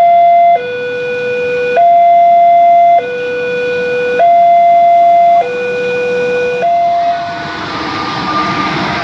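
Railway level-crossing warning alarm sounding a loud electronic hi-lo signal, a higher and a lower tone alternating about every second. It stops about seven seconds in, and the rumble and rattle of a train on the rails takes over.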